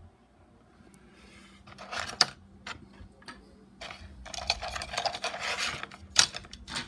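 Hard 3D-printed plastic pieces being handled and moved: a few sharp clicks about two seconds in, then a longer rustling scrape of pieces rubbing and clacking, and a sharp click near the end.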